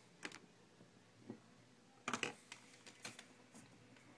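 Quiet room tone with a few faint clicks and taps, a short cluster of them about two seconds in and a few more about a second later.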